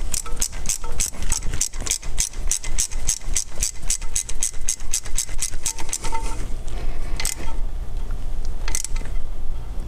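Small ratchet with an 8 mm socket clicking rapidly as the nut on the diesel injection pump's fuel lever is run down, about five or six clicks a second, then slowing to a few separate clicks after about six seconds. A steady low hum sits underneath.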